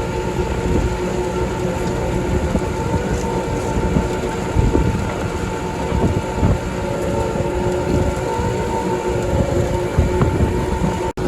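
Heavy farm machinery running steadily: a loud, deep engine rumble with several steady whining tones over it. The sound drops out briefly just before the end.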